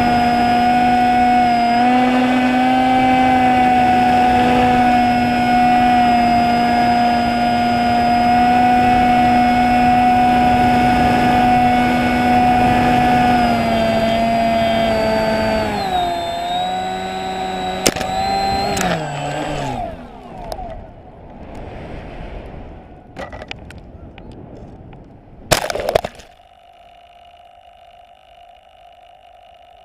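A fixed-wing RC plane's motor and propeller run with a steady whine, step down in pitch a few times and cut out as the plane is throttled back with its battery reading empty. A softer rush of air follows as it glides, then a sharp knock as it touches down in grass, and a faint steady hum after.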